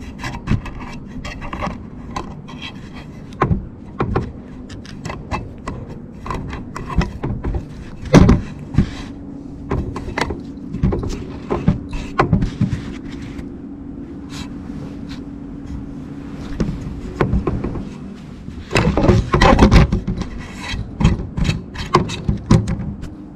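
A cat's fur and face rubbing and bumping against a camera lying on the floor: scratchy rubbing right on the microphone with many knocks, thickest about nineteen to twenty seconds in.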